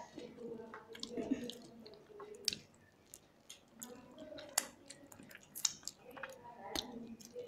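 Chewing and wet mouth sounds of people eating rice and fish curry by hand, with fingers working rice on steel plates. Sharp clicks come at irregular moments, about five of them.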